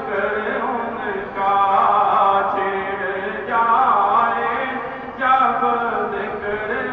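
A man reciting a naat, an Urdu devotional poem, in long sung phrases with no instruments. A new phrase begins about every two seconds.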